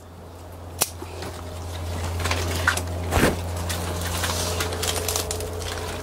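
Scissors snipping through a cucumber stem with one sharp click about a second in, followed by a few handling clicks and a knock near the middle, over a steady low hum.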